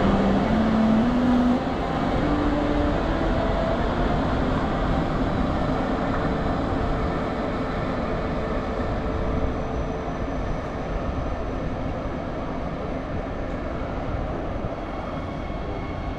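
A train pulling away: a motor whine climbing in distinct steps over the first three seconds or so, over a steady rumble of rolling wheels on rails that carries on throughout.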